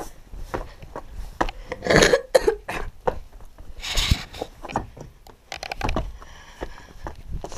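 Footsteps and scrambling over loose, rough lava rock, with irregular scrapes, crunches and knocks. A cough about two seconds in, and a brief rustle of clothing brushing the camera about four seconds in.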